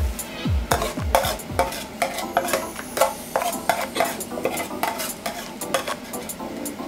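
A metal spoon repeatedly clinks and scrapes against a small blackened frying pan as spicy chicken in sauce is stirred, with a light sizzle underneath. The clicks are quick and irregular.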